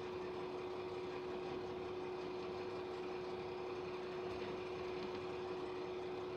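Interior running noise of a diesel railcar rolling slowly into a station: a steady drone with one constant tone held throughout.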